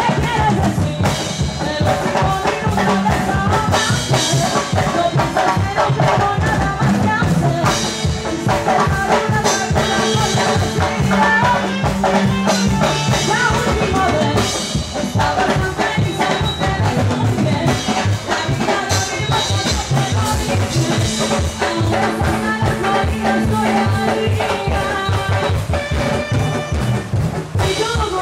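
Live band music with a drum kit keeping a steady beat under a full, loud band mix.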